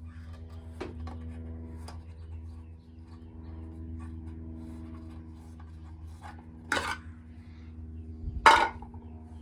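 Metal clanks from taking the cover off a well pump pressure switch: a few light clicks, then two louder clanks about two seconds apart, the second the loudest, over a steady low hum.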